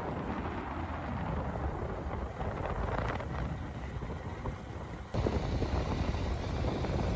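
Wind buffeting the microphone of a moving motorcycle, with the bike's engine and tyre noise underneath. The sound gets abruptly louder about five seconds in.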